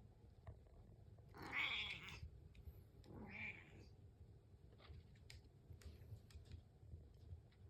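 Domestic cat meowing twice, a louder meow about a second and a half in and a second meow about three seconds in that falls in pitch, asking to be fed breakfast. A few faint clicks follow.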